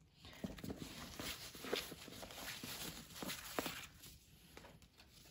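Soft rustling and small taps as a satin ribbon is pulled off a rigid gift box and the box is handled, dying down after about four seconds.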